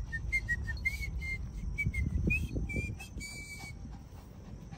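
A man whistling a tune in short notes, ending on a longer held note a little past three seconds in, over a low rumble of wind and movement on the microphone.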